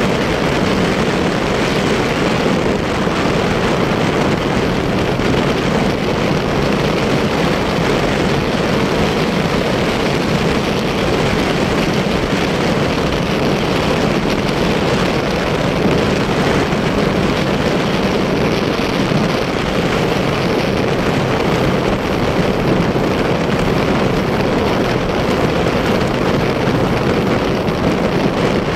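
Steady rush of wind and engine noise from a motorcycle riding at speed, with no change in pace.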